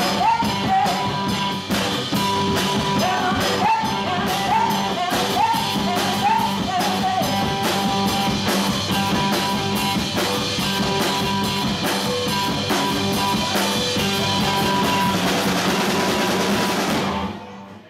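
Live rock band playing: drum kit, electric guitar and bass guitar, with a woman singing over the first several seconds before the band plays on without vocals. The band stops together about a second before the end.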